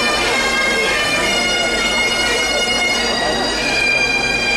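Highland bagpipes of a pipe band playing a steady, sustained tune, with crowd chatter underneath.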